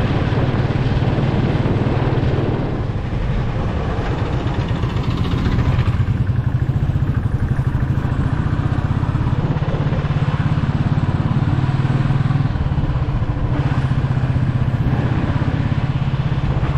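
Royal Enfield Classic 350's single-cylinder engine running under way, with wind noise over it. The engine eases off about three seconds in and picks up again around six seconds.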